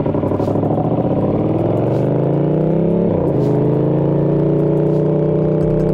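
KTM Duke motorcycle engine pulling away under acceleration, its pitch rising. About three seconds in it dips briefly at a gear change, then holds near steady.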